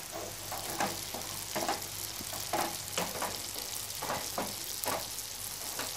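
Onions and spice masala frying in oil in a nonstick kadhai, sizzling steadily, while a spatula stirs and scrapes through them in repeated strokes about twice a second.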